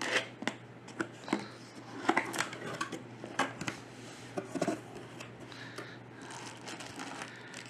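A cardboard box being opened and its packing handled: a series of sharp taps and knocks from the cardboard flaps and contents, with rustling of plastic bags and bubble wrap in the second half.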